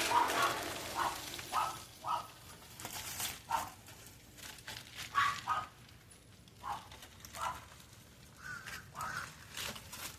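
Short, high animal calls repeated irregularly, roughly one every half second to a second.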